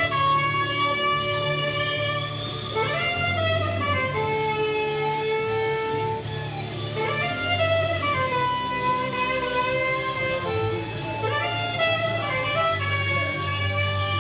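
Instrumental music: a melody of long held notes, each phrase sliding up into its first note about every four seconds, over a steady bass.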